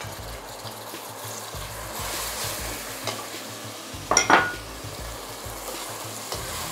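Basmati rice and canned brown lentils sizzling in hot oil in a pot while being stirred with a plastic spoon. A brief, louder clink rings out about four seconds in.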